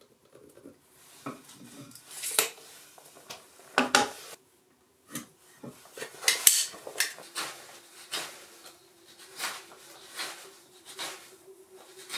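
Hand tools working wood: sharp scrapes and clicks, irregular at first, then regular strokes about one a second, with a faint steady hum starting about halfway.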